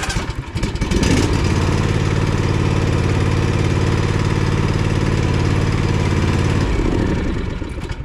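Zero-turn riding mower engine cranking on the starter and catching about a second in. It then runs steadily for several seconds and winds down to a stop near the end as it is switched off.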